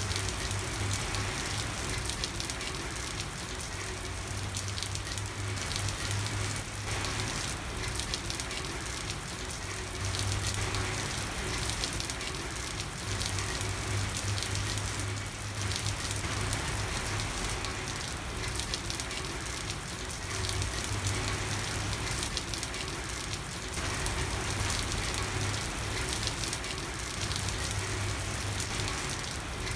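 Steady rain falling, a dense patter of many drops, with a low hum that fades in and out every few seconds.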